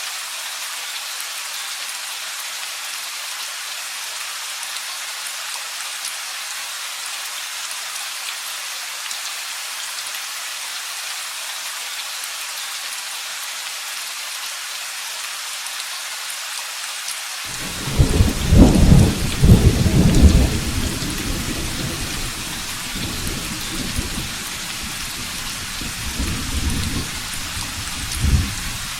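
Steady rain falling, an even hiss throughout. About two-thirds of the way in, a thunderclap breaks in suddenly and rumbles deep and loud for a few seconds, then rolls away in smaller swells near the end.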